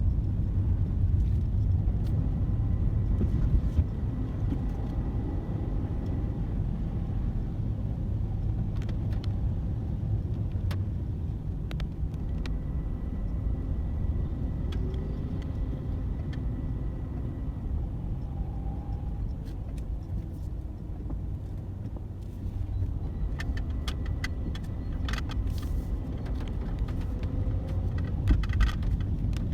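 Steady low rumble of a car on the road, with a few light clicks and rattles near the end.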